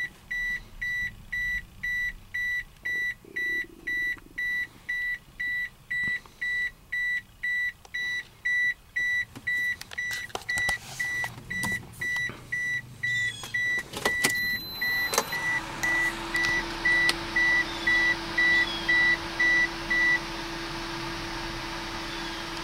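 Car warning chime beeping steadily at one pitch about twice a second, with a few clicks in the middle. About two-thirds of the way in, a steady whirring hum with a hiss comes on and keeps running, while the chime stops shortly after.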